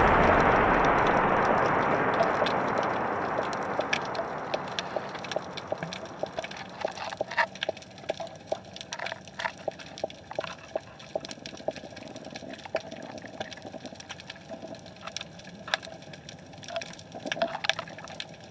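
Underwater sound over a seabed: an irregular scatter of sharp clicks and crackles with occasional short low knocks, which the uploader presents as the big fishes' 'roar'. A broad hiss fades out over the first several seconds.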